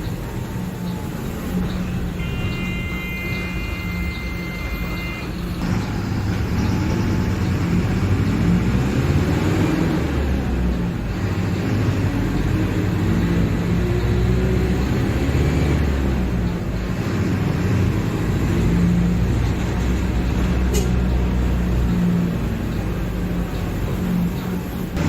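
Diesel engine of a Mercedes-Benz OF-1721 Bluetec 5 city bus running as the bus drives, its engine note rising and falling with speed. About two seconds in, a steady electronic beep sounds for about three seconds.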